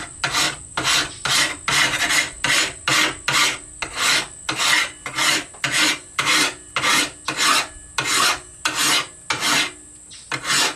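Hand file pushed along the steel edge of a hand-forged wakizashi blade in quick, even rasping strokes, about two and a half a second. The file is cutting down the high spots of a wavy edge to level and sharpen it.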